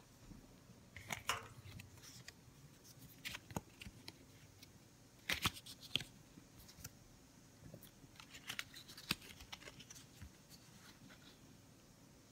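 Photo-booth print strips being taken from the delivery slot and handled: scattered paper crackles and clicks in short clusters, the loudest about five and a half seconds in.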